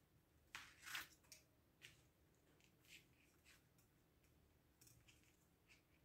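Faint clicks and scrapes of small pliers bending galvanized wire into a small closed loop, in a few short separate bursts.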